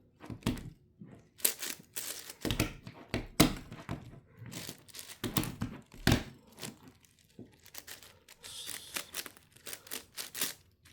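Irregular run of plastic clicks and clacks as the layers of a 10x10 Rubik's cube are turned quickly.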